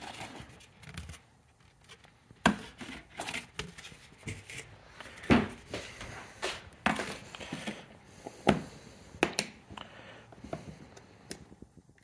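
Scattered household handling sounds: paper plates rustling as one is pulled from a stack, then a series of separate sharp knocks and clicks as things are set down on a counter and a plastic putty tin is opened.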